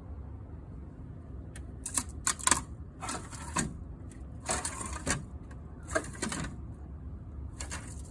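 3D printer running after a crashed print, clattering in irregular bursts of rattling clicks over a steady low hum.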